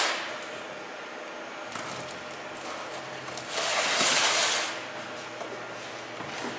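Rustling and handling of packaging as a parcel of viewer mail is unpacked, with light clicks and a longer, louder rustle about four seconds in.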